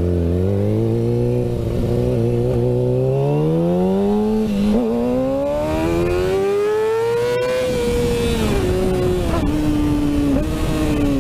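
Kawasaki Ninja sport bike engine accelerating hard, revs climbing, one quick upshift about halfway, then climbing again before easing off with the revs falling in a few steps near the end. Wind rumbles on the microphone as the speed builds.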